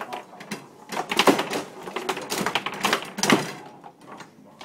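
Foosball game in play: the ball cracking off the plastic figures and the table's walls, with rods clacking, an irregular string of sharp knocks, the loudest a little over a second in and about three seconds in.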